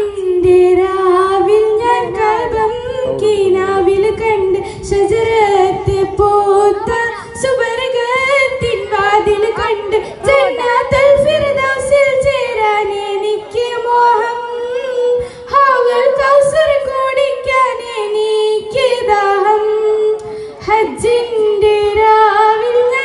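A girl singing solo into a handheld microphone: one high voice carrying a melody with many slides and ornaments between notes.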